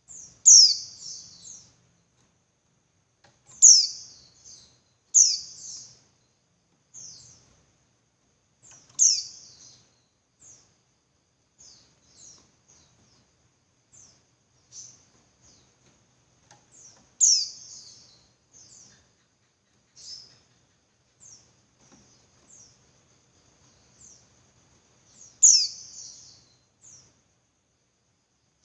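Female white-eye (pleci) calling: short, high-pitched chips about once a second, with a louder sharp call every few seconds. It is the call a female gives to draw a male.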